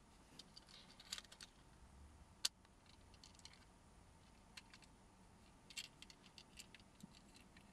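Faint, scattered small clicks and ticks of a broken car key fob's plastic casing and metal key being handled and fitted together, with one sharper click about two and a half seconds in.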